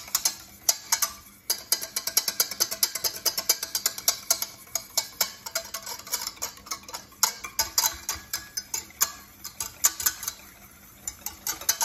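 Wire balloon whisk beating egg yolks and vinegar in a stainless steel saucepan, its wires clicking rapidly and rhythmically against the metal sides and bottom, with a few brief pauses in the strokes. This is the mayonnaise base being beaten by hand before the oil goes in.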